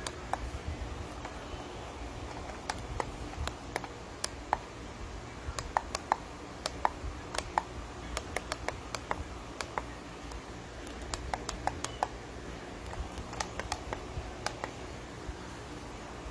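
Plastic clicks of battery-operated LED puck lights as their push-switch lampshades are pressed to turn them on and change colour. The clicks come irregularly, often two in quick succession, and stop a couple of seconds before the end.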